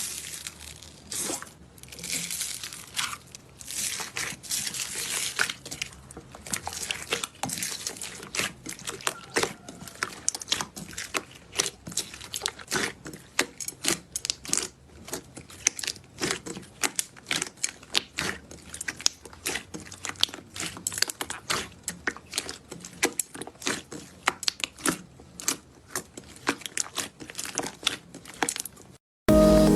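Slime being squeezed and worked, giving a dense, irregular run of crackling pops and clicks.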